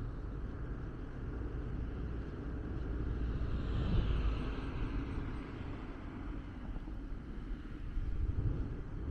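A car passes on the street; its tyre and engine noise swells to a peak about four seconds in, then fades. Underneath is a steady, buffeting wind rumble on the microphone.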